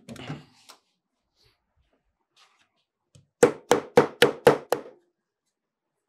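Dead-blow hammer tapping a ceiling fan's accent ring down onto the drop tube to seat it: six quick, dull knocks in a row, about four a second, a little past the halfway point.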